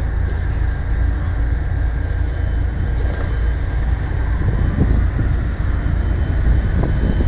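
Small boat outboard motors running steadily: a constant low rumble with a faint steady whine above it.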